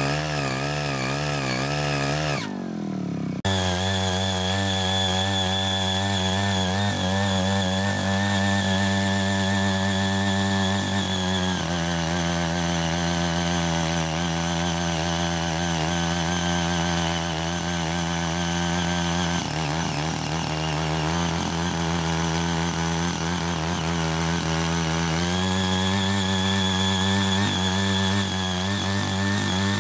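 Small petrol engine of a CY80 mini power tiller running steadily as its rotary tines work through weedy soil. Its speed wavers and shifts up and down a few times, and the sound dips briefly about two seconds in.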